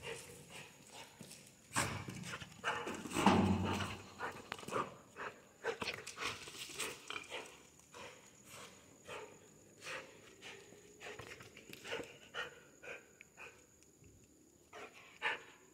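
A dog's claws clicking and scrabbling on a concrete floor as it runs and pounces on a stuffed toy. The clicks are irregular, with a couple of louder scuffles about two and three seconds in.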